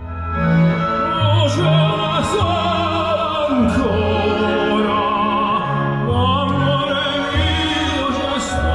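Opera: a solo voice singing with wide vibrato over orchestral accompaniment, played through a Volvo S90's Bowers & Wilkins car audio system in its Concert Hall sound mode, heard inside the cabin.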